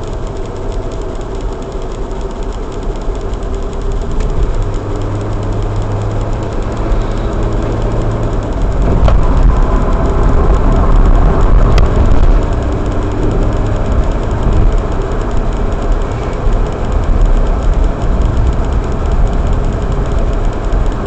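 Car engine and road noise heard from inside the cabin while driving, a steady low rumble. It grows louder for a few seconds in the middle while a semi-trailer truck is alongside, with two short clicks in that stretch.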